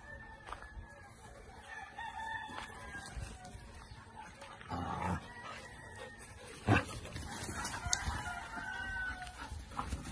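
Roosters crowing, long held calls, with a short rustling burst about halfway through and a sharp knock about two-thirds of the way in, the loudest sound.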